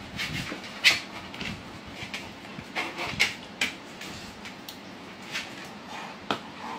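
Plastic slippers clacking and scraping against a hard floor as a Labrador picks them up in its mouth: a handful of sharp clacks, the loudest about a second in, others a little after three seconds and near the end.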